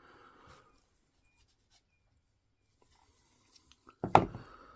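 Faint scraping and rubbing as small drill-motor parts are handled, then a single sharp knock about four seconds in as a part is set down or fitted.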